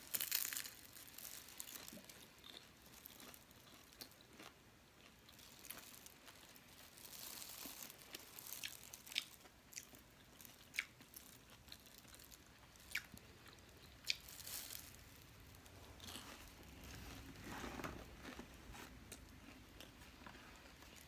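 A person biting and chewing crunchy fried food, a crisp beef lumpia spring roll, close to the microphone: faint chewing with sharp crunches scattered throughout.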